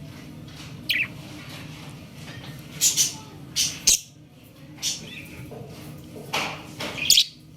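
Baby budgerigar chirping: a scatter of short, high chirps and squawks, about eight in all, with the loudest near the end. A steady low hum runs underneath.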